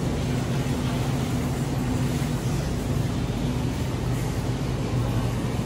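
Steady low electrical hum with a constant hiss of air: supermarket refrigerated display cases and ventilation running.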